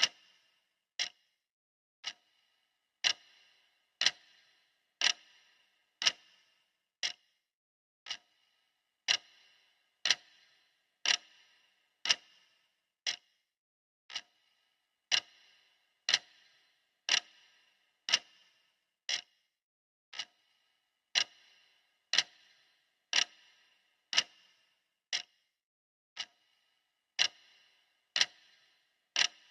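Clock ticking steadily, about one tick a second, some ticks louder than others.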